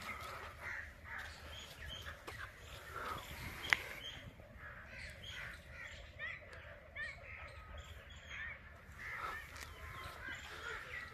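Birds calling faintly, many short chirps and calls from several birds. A single sharp click comes a little under four seconds in.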